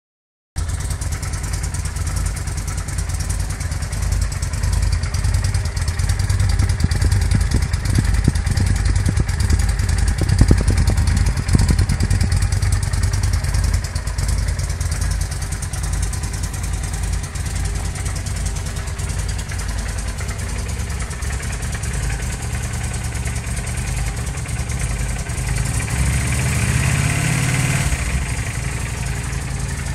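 Honda VT750 Shadow Aero's V-twin engine running at idle through its original stock exhaust. The note grows somewhat louder for several seconds in the first half, and near the end the engine revs up briefly and falls back to idle.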